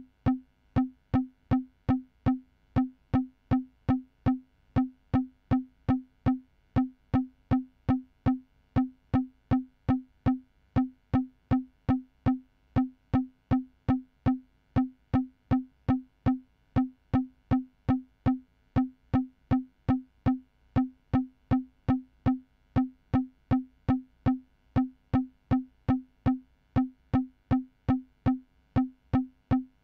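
Synthesized percussion: one short pitched electronic blip repeating evenly about twice a second, a steady pulse with no other parts.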